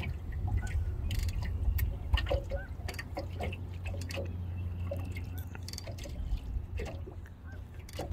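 Small waves lapping and plinking against the hull of an anchored boat, under a steady low rumble.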